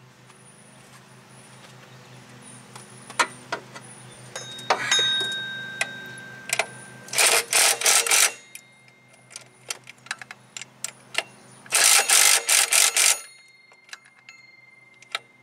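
Ratchet wrench clicking in two quick bursts, about halfway through and again near 12 seconds in, as motor mount nuts are run down and tightened from below, with scattered light clanks of the tool and socket.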